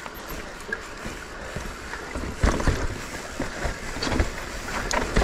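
Mountain bike descending a wet, rocky trail: tyres rolling over dirt and rock with wind noise on the microphone. From about halfway there is a run of sharp knocks and clatter as the wheels and suspension hit rocks.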